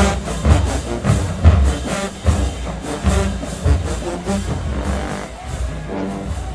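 Marching band playing: brass over a steady, heavy drum beat, loudest in the first couple of seconds.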